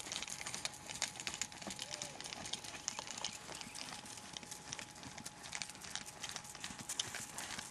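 Faint hoofbeats of a horse trotting on the lunge line over sand: soft, irregular thuds and clicks of its footfalls.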